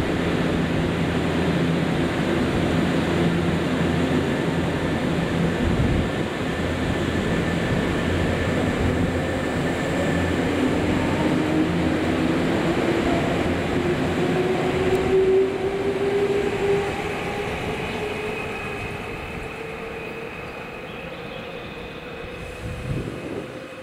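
Nankai 6300-series electric commuter train running along the platform as it pulls away: a steady loud rumble of wheels and motors, with a whine that rises in pitch as the train picks up speed. The sound then fades over the last several seconds as the train moves off.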